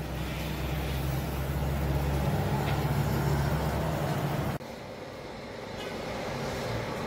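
Low, steady hum of a motor vehicle's engine running in street traffic. It grows louder, then cuts off abruptly a little over halfway through. A quieter steady background hum follows.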